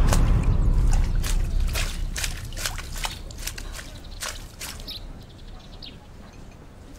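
A loud rushing noise dies away over the first two seconds, followed by scattered light drips at irregular intervals.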